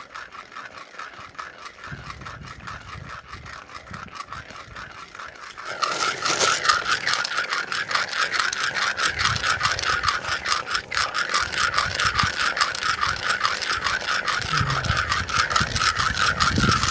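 Insects buzzing: a continuous, rapid, rasping pulse that grows much louder about six seconds in.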